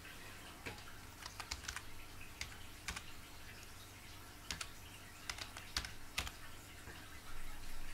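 Irregular clicks of typing on a computer keyboard, with a few quick runs of keystrokes, over the steady low hum and water sound of a home fish tank.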